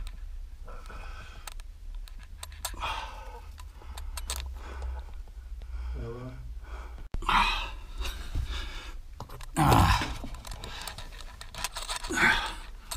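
Someone clambering over loose stone rubble: stones crunching and clattering underfoot with scattered clicks, together with heavy breathing and several louder breathy bursts in the second half.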